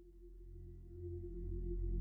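Ambient music drone fading in: a held ringing tone over a deep low rumble, growing steadily louder.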